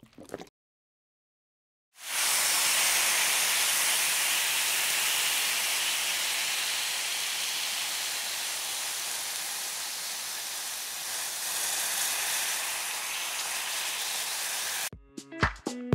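Sweet potato chips frying in hot oil: a steady sizzle that starts abruptly about two seconds in, after a moment of dead silence, and eases off slightly as it goes on. Music with a beat comes in near the end.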